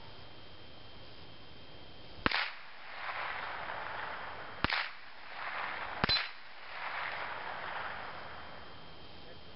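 Three sharp cracks of a Remington Nylon 66 .22 rifle fired from some 50 to 75 yards away, heard from near the steel plate target. The first comes about two seconds in, the next two a little over two seconds and then about a second and a half apart.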